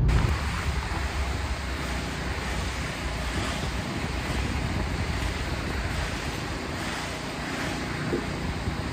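Wind blowing outdoors, a steady rushing noise with slight swells.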